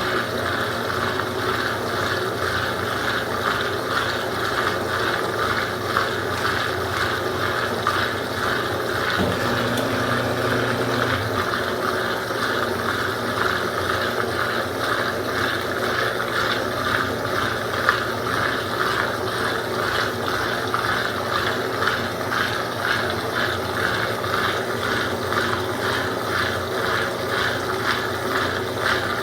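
Consul Supercargo 8 kg (CWL08C) washing machine running mid-cycle: a steady, fast, even mechanical clatter, with a brief low hum added about nine seconds in for around two seconds.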